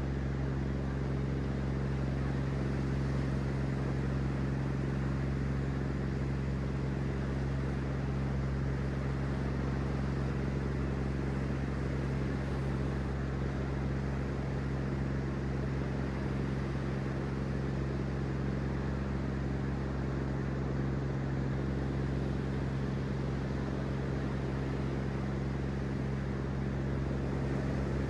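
A steady low hum of several held tones with an even hiss over it, unchanging in level throughout.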